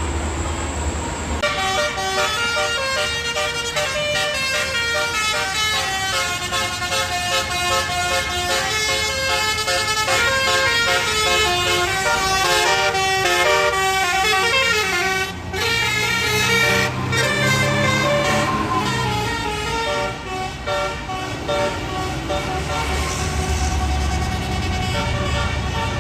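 Bus telolet basuri horn playing a fast tune of quickly changing multi-tone notes, starting about a second and a half in, over the low running of a bus engine. Near the middle a low engine note rises and falls as a bus goes by.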